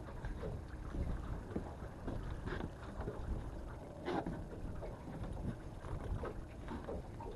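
Wind rumbling on the microphone aboard an open fishing boat, with a few scattered knocks and rattles from gear being handled.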